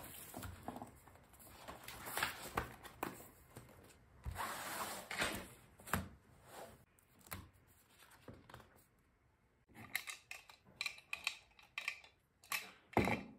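Notebooks and papers handled on a desk: paper rustling and sliding, with soft taps and knocks as a spiral notebook and a folder are moved and set down. A run of quick small clicks comes near the end, then one sharper knock.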